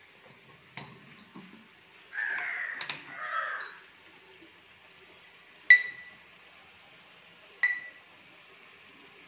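Two sharp metallic clinks with a short ring, about two seconds apart in the second half, from a utensil knocking against a metal cooking pot. Earlier, two harsh crow caws are heard.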